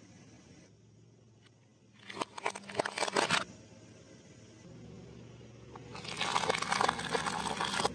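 Hard plastic toys cracking and crunching under a car tyre. There is a burst of sharp snaps about two seconds in, then a longer, denser crackling from about five seconds to the end, with a low steady hum underneath.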